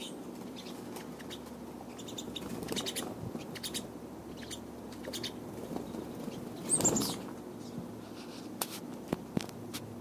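Pine siskins feeding on sunflower seeds on a person's lap and hand: light scratchy clicks of beaks and feet, with a loud flutter of wings about seven seconds in as a bird takes off or lands. Two sharp clicks come a little after nine seconds.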